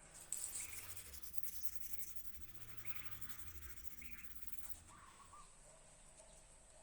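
Abrasive rubbing on the steel of a knife blade: a scratchy rasping that starts a moment in and stops about two-thirds of the way through, followed by a few faint high tones.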